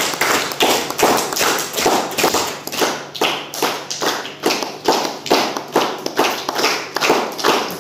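Hands clapping in a steady rhythm, about two and a half claps a second.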